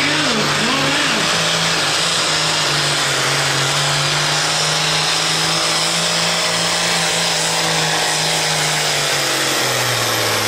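Diesel pulling tractor of the 8500 lb A-pump class running flat out under load as it drags a weight-transfer sled, a steady loud engine note with a high-pitched hiss over it. The engine pitch sags near the end as the tractor lugs down against the sled.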